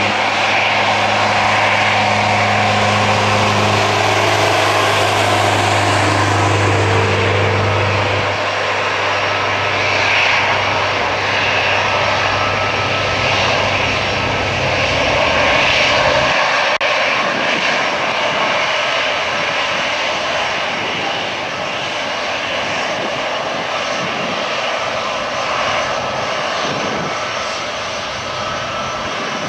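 Boeing C-17A Globemaster III's four turbofan engines running steadily as the aircraft taxis, a loud jet roar with a low hum that fades out about halfway through.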